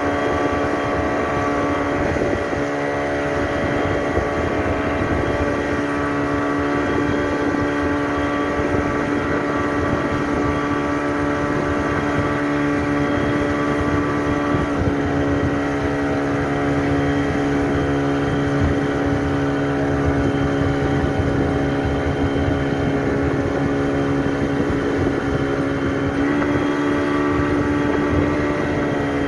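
Motorboat engine running steadily at speed while towing a banana boat, its note dipping slightly about halfway through and rising a little near the end.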